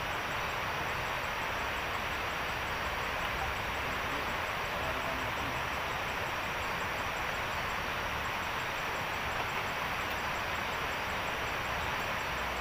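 Steady, even rushing noise with a faint, rapid high ticking over it.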